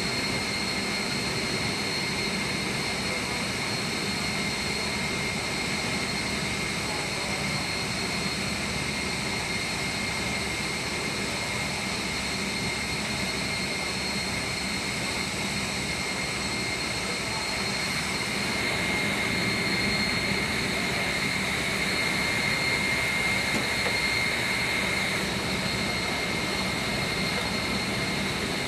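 Steady drone of a running centrifugal chiller, with a high whine over a broad mechanical rush. The whine grows a little louder and sharper for several seconds past the middle, then eases back.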